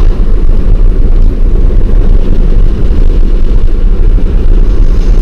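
Car driving at road speed, heard inside the cabin: a steady low rumble of tyres on the road and engine.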